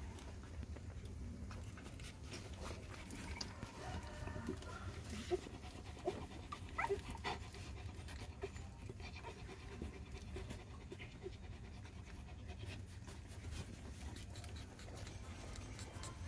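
Mother dog panting softly while her newborn puppies nurse. A few brief high squeaks, some rising in pitch, come from the puppies around the middle.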